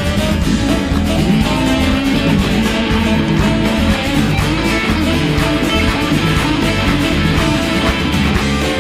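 Live rockabilly band playing an instrumental passage: strummed guitar over bass and drums at a steady beat.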